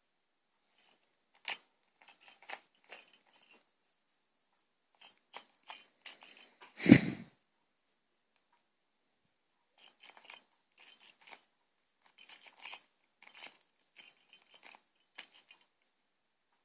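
A stiff plastic Rubik's Cube being twisted by hand, its layers turning with dry clicks and scrapes in short runs, with a pause of a couple of seconds after the middle. One louder thump comes about 7 seconds in.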